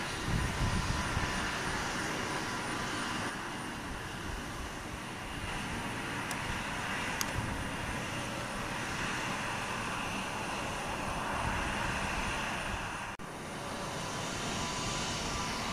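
Airbus A321neo's Pratt & Whitney PW1100G geared turbofans running at taxi power as the airliner taxis: a steady engine noise with several steady high tones. The sound dips briefly about 13 seconds in.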